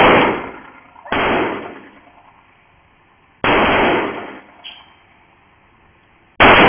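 Four handgun shots: one at the start, one about a second in, one about three and a half seconds in and one near the end, each a sharp crack that dies away over about half a second.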